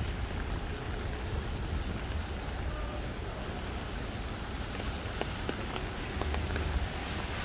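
Light rain falling on a wet street, with a few faint drips and a steady low rumble underneath.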